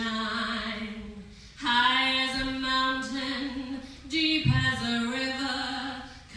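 A woman singing solo, holding long notes in phrases with short breaks about one and a half and four seconds in.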